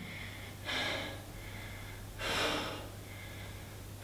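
A man breathing hard while straining to hold a prone back-extension (Superman hold): two heavy, noisy breaths, about a second and a half apart.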